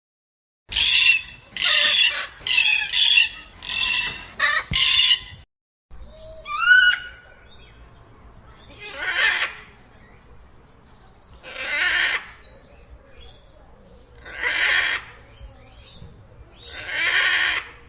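Macaws squawking: a quick run of about six harsh squawks, then, after a short break, a rising whistled call followed by single harsh squawks every two to three seconds.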